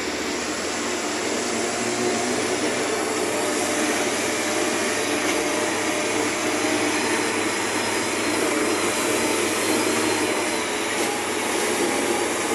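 Diesel engine of a wheeled heavy machine running steadily under load as it drives along a dirt track, building up over the first couple of seconds and then holding.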